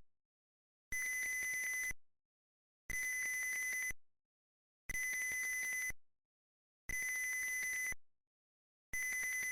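Piezo buzzer driven by an Arduino, beeping on and off in a steady pattern. It sounds a steady high-pitched tone for about a second, then stays silent for about a second, five times; the last beep is cut off at the end.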